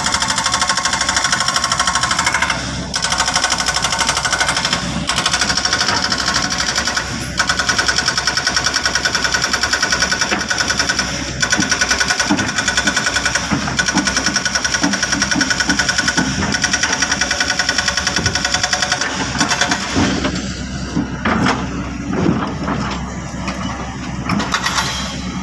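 Heavy diesel machinery running with a rapid, steady mechanical clatter. About twenty seconds in, the clatter gives way to a rougher, uneven engine sound.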